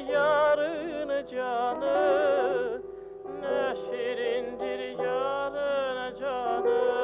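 A song with a solo voice singing wavering, ornamented melodic lines over sustained instrumental accompaniment. The lyrics are in Turkish.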